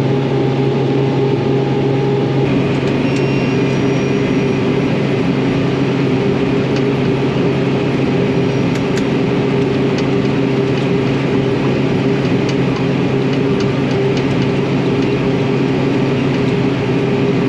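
Crop sprayer running steadily in the field, with a constant low engine drone and a few faint ticks and rattles.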